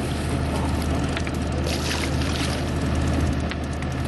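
Party boat's engine running with a steady low drone, under a hiss of wind and water and a few light clicks.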